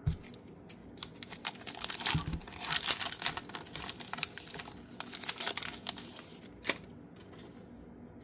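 Trading-card pack wrapper being torn open and crinkled by hand, a dense run of crackling and ripping that stops about seven seconds in.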